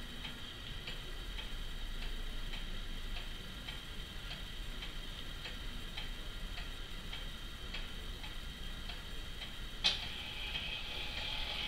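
Pendulum wall clock ticking steadily, a little under two ticks a second, with one sharper click near the end.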